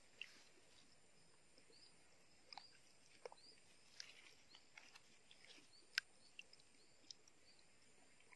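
Near silence: faint outdoor ambience with scattered small ticks and clicks, and one sharper click about six seconds in.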